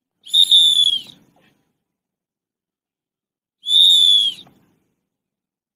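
Two short, loud blasts of a training whistle, one just after the start and one about three seconds later, each slightly dropping in pitch as it ends. The blasts act as commands for trainees doing chin-ups on a bar.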